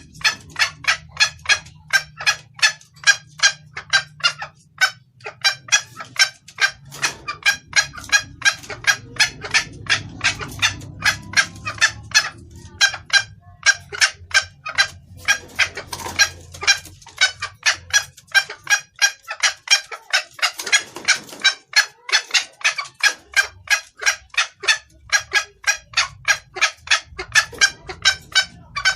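Junglefowl hen clucking rapidly and without pause, about three short calls a second: the continuous call a hen gives that is used to lure junglefowl cocks.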